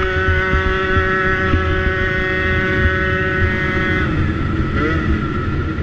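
50cc two-stroke dirt bike engine held at steady high revs, its pitch dropping off about four seconds in, then briefly climbing again near the end.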